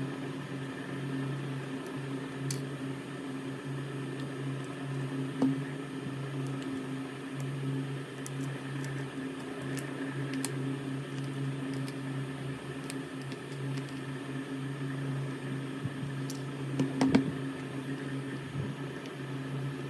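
A small motor hums steadily, with a few light clicks and a short cluster of louder clicks near the end.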